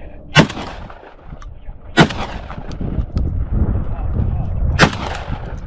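Three loud shotgun shots, the second about a second and a half after the first and the third nearly three seconds later, each with a short echo trailing off.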